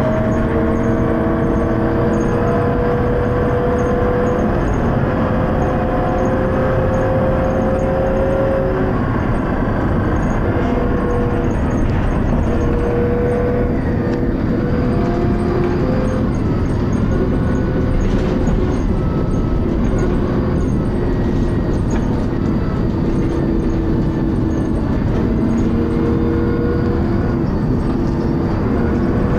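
Dennis Arrow bus heard from on board, running under way: a steady low engine rumble with several whining tones that climb slowly for about nine seconds, then break up and shift in pitch. This bus's ZF automatic gearbox is known to slip.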